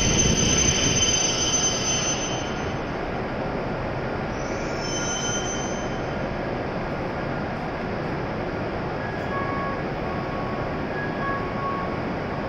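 E7 series Shinkansen train pulling slowly into the platform and braking to a stop. The running noise is loud at first and fades over the first couple of seconds, with a brief high squeal from the brakes about five seconds in. After that the standing train gives a steady, quieter hum.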